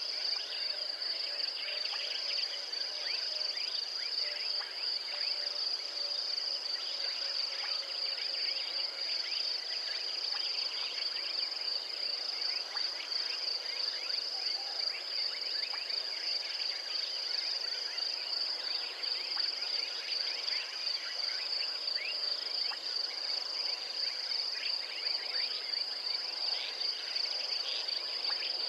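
Night-insect chorus: a continuous high trill from many insects, with a dense scatter of shorter chirps and clicks beneath it.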